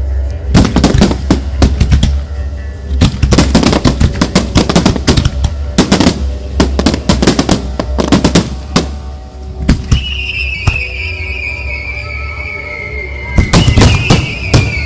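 Rapid volleys of firework shells going off, sharp reports one after another, over music played for the display. About ten seconds in, a long whistle falls slowly in pitch, and a last cluster of reports comes near the end.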